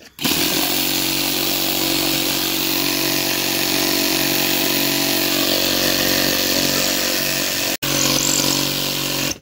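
DeWalt cordless reciprocating saw running steadily, its blade sawing into a wooden board. The sound breaks off for an instant near the end and stops suddenly.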